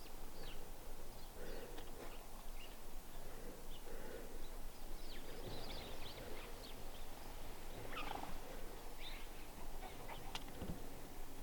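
Domestic poultry calling: soft, low calls repeating about once a second, with short high chirps among them.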